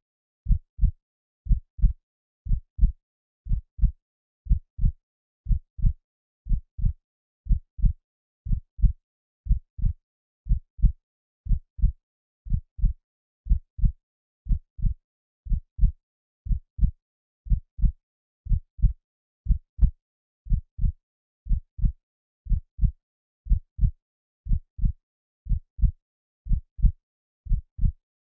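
Heartbeat sound effect: a steady, even lub-dub, each beat a pair of low thumps, about one beat a second.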